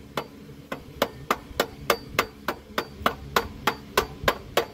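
Rubber mallet gently tapping a new A/C compressor pulley onto the compressor of a 2006 Nissan Murano, seating it. A steady run of sharp taps, about three a second, that get firmer about a second in.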